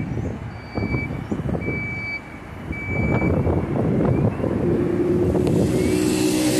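A bus's reversing alarm beeps about four times, roughly once a second, over its diesel engine, which grows louder about halfway through. A hiss comes in near the end.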